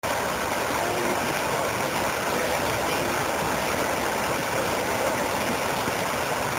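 Steady outdoor city-centre background noise: an even rush with no speech, cutting in abruptly at the start.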